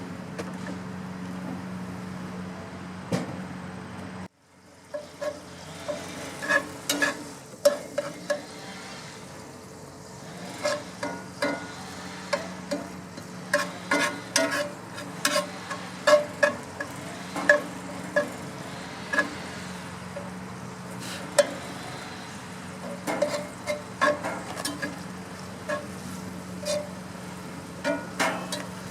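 Ground beef cooking in a cast iron skillet on a gas grill: a sizzling haze with irregular sharp clicks and taps over a steady low hum. The sound cuts out briefly about four seconds in.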